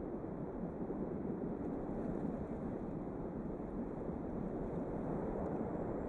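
Constant wind noise: a steady, low rushing with a rumble beneath it, holding an even level without gusts.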